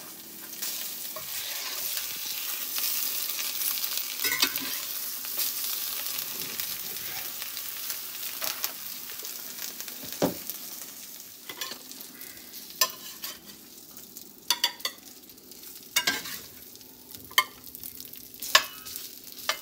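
Eggs frying with a steady sizzle in a cast iron skillet, strongest in the first half and dying down after about ten seconds. A metal spatula scrapes and clinks against the pan, and there are several sharp knocks near the end.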